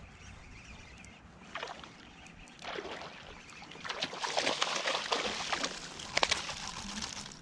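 A hooked speckled trout thrashing and splashing at the water's surface beside a kayak as it is reeled in and lifted out. The splashing starts about four seconds in and is the loudest part, a dense spatter lasting about three seconds.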